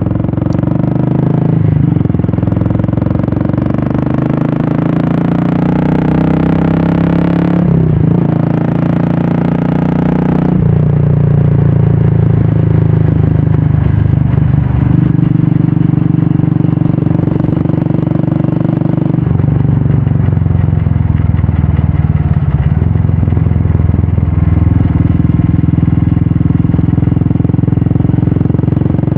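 Royal Enfield Classic 350's single-cylinder engine running through an aftermarket Red Rooster exhaust while the bike is ridden. The engine note climbs and drops back a few times in the first ten seconds, then holds a steady note while cruising.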